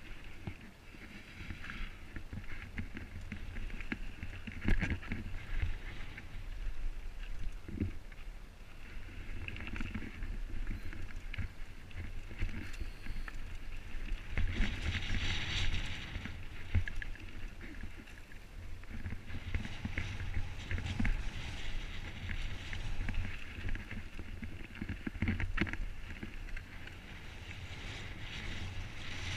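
Mountain bike riding down a loose-stone dirt trail: tyres crunching over gravel, with the bike knocking and rattling over bumps and wind rumbling on the camera microphone.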